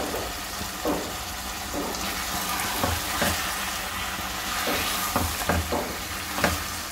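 A potato and egg curry sizzling in a metal pot while a silicone spatula stirs it, with scraping and knocks against the pot coming at irregular moments.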